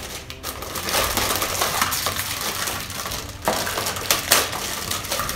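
Clear plastic wrapping crinkling and crackling as it is handled and pulled open, with a couple of sharper crackles about three and a half and four and a half seconds in.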